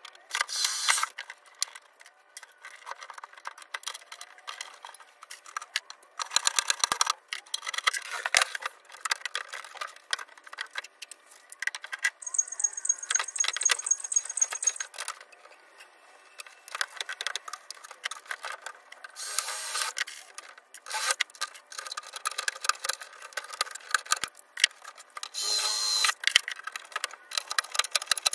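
Workshop hand-work noise: a run of sharp clicks, knocks and rattles of tools and small parts, broken by several short scraping bursts, with a brief high whine for a few seconds near the middle.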